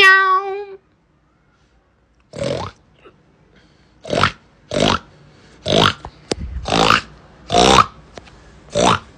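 Animal calls: one drawn-out, meow-like cry at the start, then after a pause a run of about seven short, rough grunting calls, roughly a second apart.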